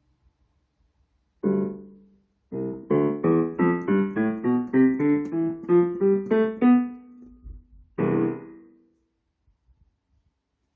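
Casio digital piano being played: a chord, then a rising run of single notes about three a second, and a final chord.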